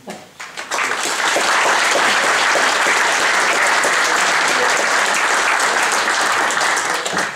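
Audience applauding, swelling up within the first second and holding steady until it dies away near the end.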